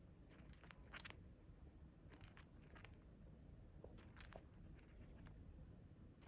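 Cockatiel grinding its beak: faint, quick clicking and scraping in short runs, four or so times, over a low background hum. Beak grinding is a sign of a relaxed, contented bird, often settling to sleep.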